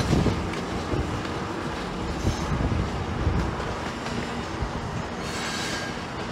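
A GO Transit MP40PH-3C diesel locomotive running as it pulls a bilevel commuter train, with a steady rumble and the wheels knocking irregularly over the rail joints and switches.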